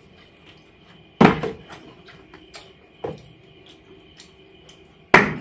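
Plastic bottle being flipped and landing on a tiled floor: three thuds about two seconds apart, the first and last loudest.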